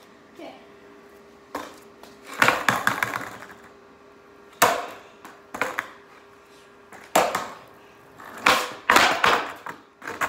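Skateboard clattering on a concrete floor: the wooden deck and wheels slapping down again and again as kickflips are tried, in a series of sharp knocks, the loudest about two and a half seconds in and near the end. A faint steady hum runs underneath.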